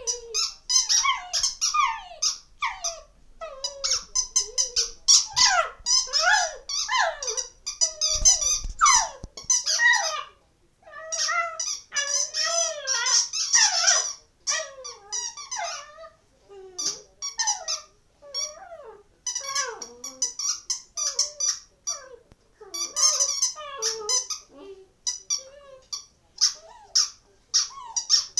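A dog chewing a squeaky toy doll, setting off quick irregular runs of high squeaks with short pauses between them. The dog's own whiny vocalising, its 'singing', is mixed in among the squeaks.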